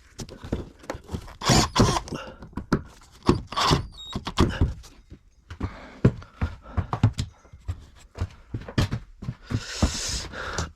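Irregular knocks and thumps from handling and fitting plywood ceiling panels inside a bus, with a short rasping noise near the end.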